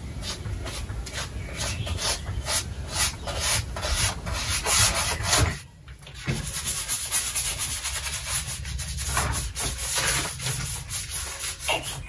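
Charcoal and hands scratching and rubbing over a large sheet of paper in quick repeated strokes, with a brief pause about six seconds in.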